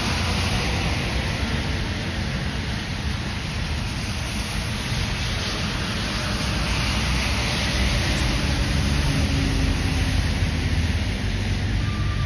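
Tractor-trailers and cars passing on a rain-soaked road: a steady hiss of tyres on wet pavement over the low rumble of diesel truck engines.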